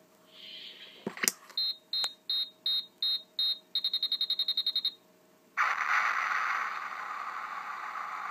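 Novelty push button under a flip-up clear safety cover setting off its electronic sound effect: a click, then six high beeps about a third of a second apart that quicken into rapid beeping for about a second, then, after a brief pause, a loud steady rushing noise that carries on.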